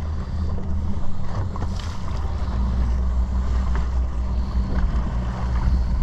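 Boat engine running steadily as the boat moves forward, with water washing along the hull and wind buffeting the microphone.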